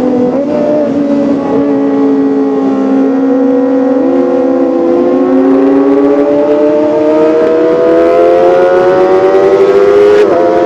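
Kawasaki ZX-25R's four-cylinder engine at high revs with a high, siren-like whine, its pitch climbing steadily for several seconds, then breaking off briefly and dropping near the end.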